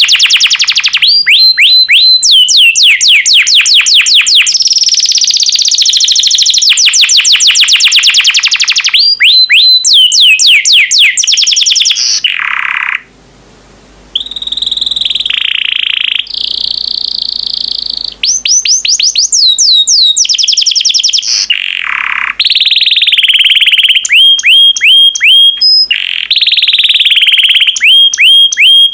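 Yellow canary singing loudly in long rolling phrases: fast trills of repeated high notes and rapid runs of downward-sweeping notes, with a short break about halfway through.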